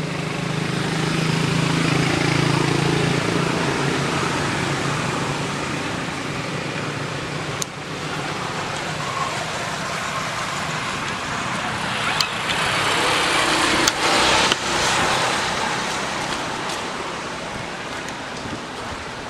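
Road traffic: a vehicle passing at the start with a low engine hum, and another, louder one going by about two-thirds through, with a few sharp clicks.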